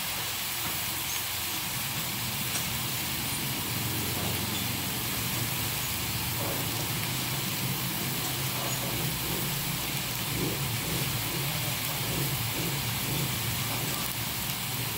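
Steady hiss with a low, even rumble from a pan of vegetables cooking on the stove.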